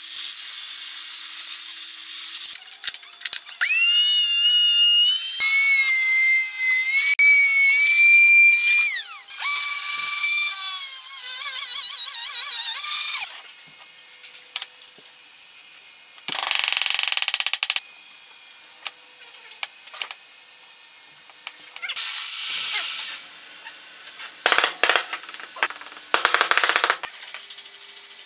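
Woodworking power tools in separate bursts: a table saw blade cutting into a hardwood board at the start, then a motor whine that holds and shifts in pitch, and later three short bursts of cutting noise with quiet gaps between.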